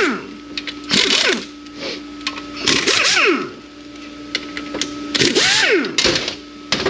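A power tool run in about four short bursts, its pitch sweeping quickly as it spins up and winds down, over a steady hum. These are fasteners being run out as the Ford AOD automatic transmission teardown begins.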